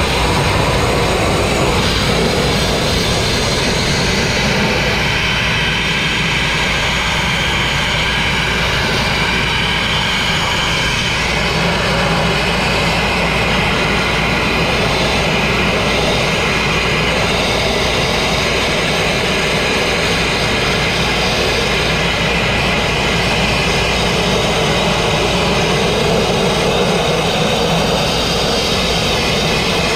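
Grit-blasting nozzle running continuously: a loud, steady rush of compressed air and abrasive grit hitting the crane's steel, stripping rust and paint.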